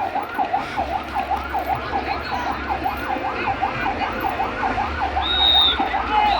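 Emergency vehicle siren on a fast yelp, its pitch sweeping down and up about three to four times a second, over a low engine rumble. A brief high steady tone sounds about five seconds in.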